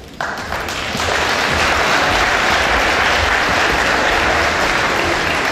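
Audience applause that breaks out suddenly just after the start, swells within about a second and then holds steady.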